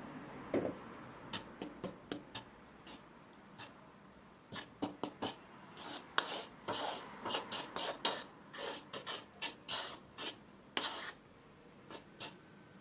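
A metal spoon stirring dry flour and cornstarch in a wooden bowl: repeated scrapes and taps of the spoon against the bowl. The scraping turns quicker and busier from about four seconds in.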